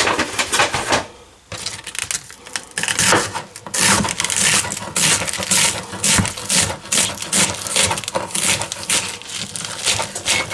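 Kitchen knife slicing bok choy stalks on a plastic cutting board: a quick run of sharp cuts and blade taps on the board, several a second, with a short pause about a second in.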